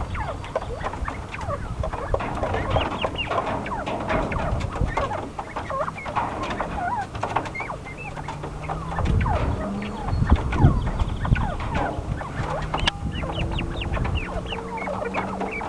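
A small flock of quail calling continuously: many short, overlapping chirps and clucks, each a quick rising or falling note.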